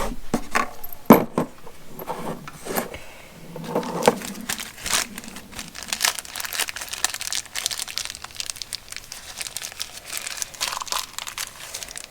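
Plastic bag crinkling and rustling as a small hardware pack of bolts, an Allen key and lock washers is opened and handled, with irregular sharp crackles and a few louder snaps in the first few seconds.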